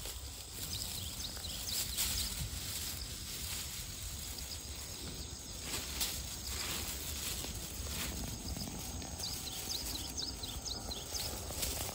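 Outdoor ambience in a chestnut orchard: scattered rustles and light knocks of footsteps and handling among fallen chestnut burrs over a steady low rumble, with a run of short high chirps near the end.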